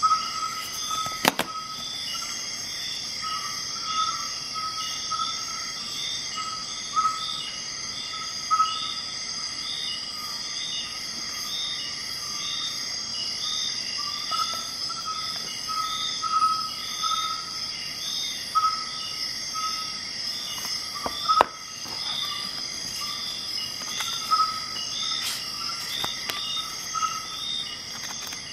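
Insects chirping steadily in a regular pulsing rhythm, a little more than one chirp a second over a continuous high trill. Occasional sharp clicks and rustles of cardboard packaging being handled, the loudest about a second in and again near the two-thirds mark.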